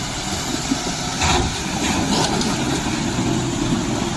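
Truck engine idling steadily with a low rumble, with a couple of brief noisy swells between about one and two seconds in.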